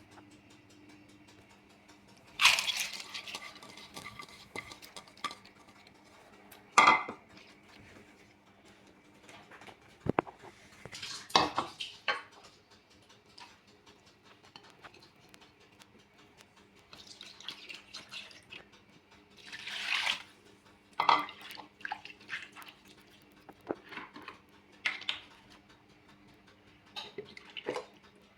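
Metal pots and kitchen utensils clanking and clinking in scattered knocks, with water splashing now and then, over a faint steady hum.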